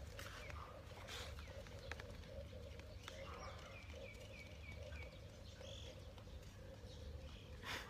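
A bird calling faintly: a quick run of about five short, falling chirps about three seconds in, with a few other scattered high calls over a faint steady hum.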